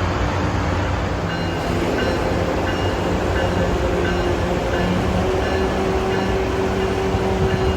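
Commuter train at a terminal platform, running with a steady engine hum. From about a second and a half in, a short high tone repeats about twice a second.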